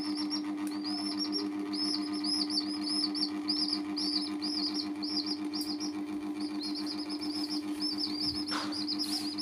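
Young domestic chicks peeping: short, high, arched peeps in a steady run of about three a second, over a steady low hum. A brief rustle of movement comes near the end.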